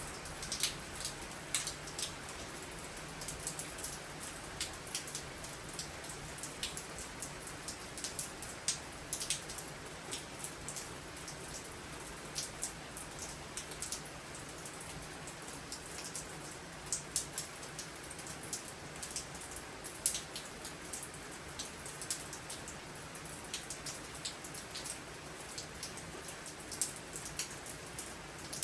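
Steady rain: a constant hiss with frequent, irregular sharp drips ticking onto a hard surface.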